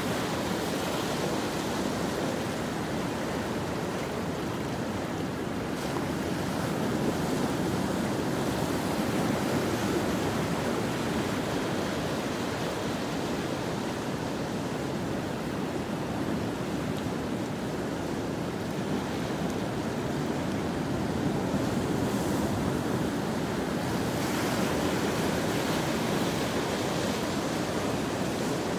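Ocean surf breaking and washing over a rocky shore: a continuous rush of water that swells gently louder and eases off as successive waves come in.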